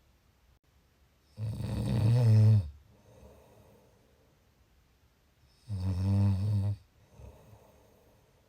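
Snoring: two loud snores, each about a second long and about four seconds apart, each followed by a softer breath.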